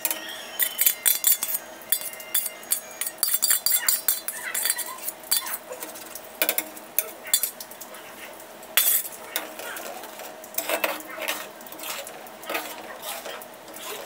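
A metal spatula clicking and scraping against a kadai while stirring cream into thick curry gravy. The knocks come thick and fast for the first few seconds, then more sparsely.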